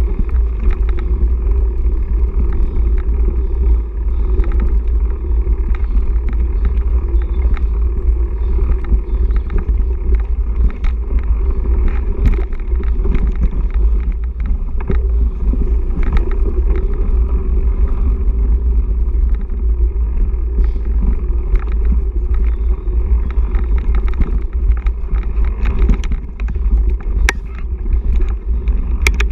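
Mountain bike riding fast over a dirt forest trail, heard through an action camera: a constant heavy rumble of wind and vibration on the microphone, with frequent irregular sharp clicks and rattles from the bike over the rough ground.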